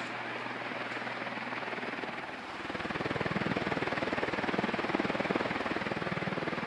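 Envirofan Goldline D-36N 36-inch industrial ceiling fan running, its blades giving a steady rhythmic whoosh that grows louder about two and a half seconds in. The owner says it has no bearing problems.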